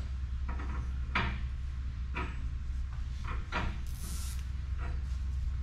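Scattered knocks and clanks of hand-tool work on a machine, over a steady low hum. A short hiss comes about four seconds in.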